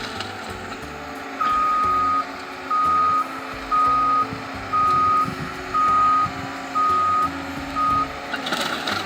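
Reversing alarm on a piece of heavy machinery: seven steady single-tone beeps, about one a second, starting a little over a second in, over the steady running of the machine's diesel engine.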